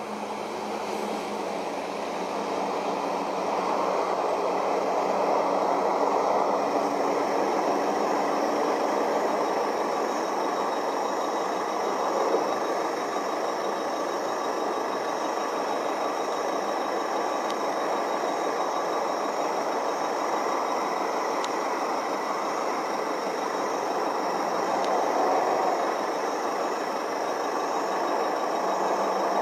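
Steady noise of road traffic, with the queued trucks' engines running, rising over the first few seconds and then holding.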